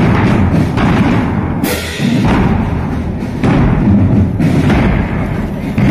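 Marching drum band playing loud: Ludwig marching bass drums beating with other percussion, with a short break in the beat about two seconds in before it picks up again.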